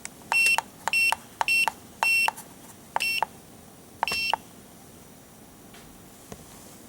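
Handheld diagnostic scan tool beeping at each key press while its menus are stepped through: six short, high beeps at uneven intervals over about four seconds, then quiet.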